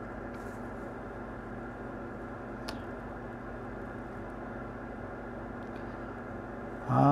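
Steady low electrical hum with a light fan-like hiss, the room tone of a repair bench while the solder work is silent, with one faint click a little under three seconds in.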